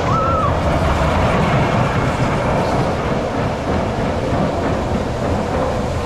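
Roller coaster train running along its track: a steady, loud rolling noise of wheels on the rails.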